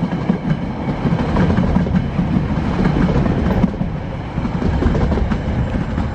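Freight train's container flat wagons rolling past at close range: a continuous rumble with steel wheels clacking over the rails.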